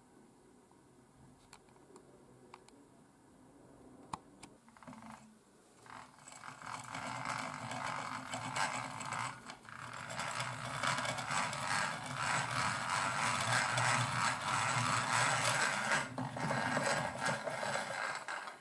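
Restored 1940s enclosed two-speed breast drill being hand-cranked, its gears whirring with fine rapid ticking as the twist bit bores into plywood. It starts about five seconds in, after a few faint clicks, and stops just before the end.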